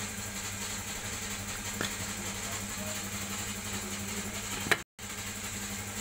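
Steady background hum with a few light metallic clicks and knocks as a car's rack-and-pinion steering rack is handled, the sharpest clink coming near the end.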